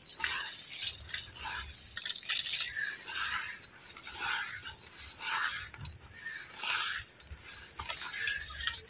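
Crispy golden-fried onions crushed and rubbed by hand on a steel plate: irregular dry crackling and rustling, with fingers scraping on the metal.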